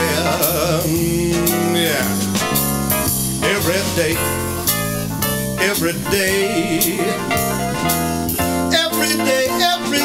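A blues song with guitar and band playing between sung verses, and a singer calling out 'Yeah' about two seconds in.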